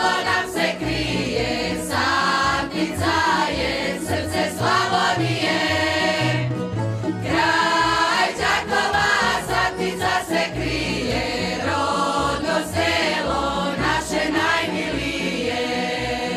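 Mixed folk choir of women and men singing a Slavonian folk song together in full voice, in phrases of held, sliding notes.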